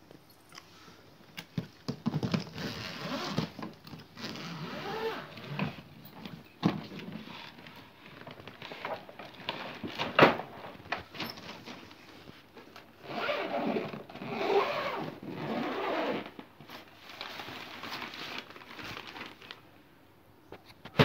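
Hard-shell polypropylene suitcase being unzipped and opened by hand: rasping stretches of the zip running round the case, rustling of the fabric lining and straps, and a few sharp clicks and knocks, the loudest about ten seconds in.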